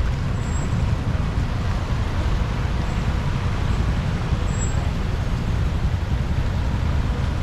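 Steady road-traffic noise with a heavy low rumble and a hiss over it, without pause or distinct events.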